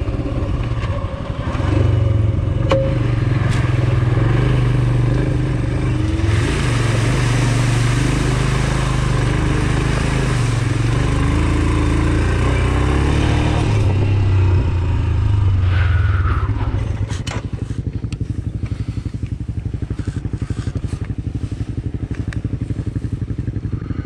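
Royal Enfield Himalayan's single-cylinder engine pulling the bike along a gravel road, its pitch rising and falling through the throttle, with a rush of wind and tyre noise in the middle stretch. From about two-thirds of the way in, the bike settles to a slower, even idle, with a few light clicks.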